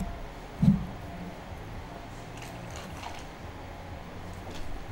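Mostly quiet room tone. A brief low vocal sound comes under a second in, then faint small sounds as a man sips from a drink.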